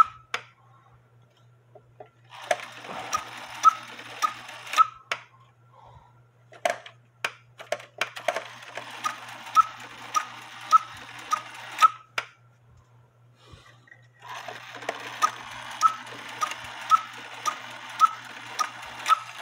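Antique cuckoo clock's strike train running in three spells, a whirring rattle with a regular click about every half second or so, separated by short pauses with a few single clicks.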